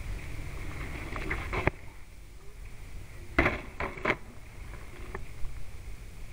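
A longboard clacking on asphalt during a flip trick: a sharp knock under two seconds in, then a quick cluster of clacks and thuds around three and a half to four seconds, over the low rumble of the wheels rolling on the pavement.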